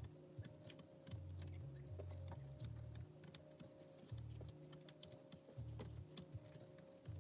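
Faint, irregular light tapping of baby quail chicks pecking, over a low background drone that shifts in pitch every second or so.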